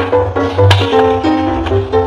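Background music: a melody of short stepped notes over a bass line, with sharp percussive hits now and then.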